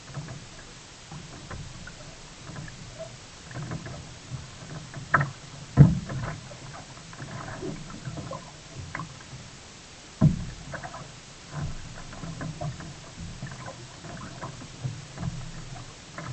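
Sea kayak on the water: paddle splashes and water sloshing around the hull, with a few sharper, louder knocks about five, six and ten seconds in.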